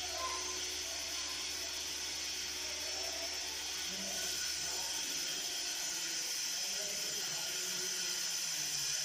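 Steady hiss with faint, indistinct voices in the background, and a low hum that stops about halfway through.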